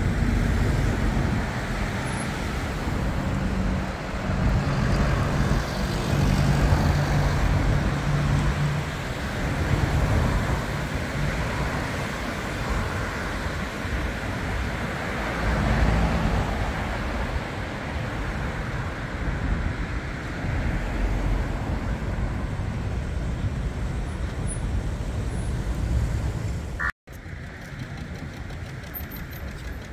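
Steady road traffic, with passing car and heavier vehicle engines running. Near the end the sound cuts out for an instant, then carries on quieter.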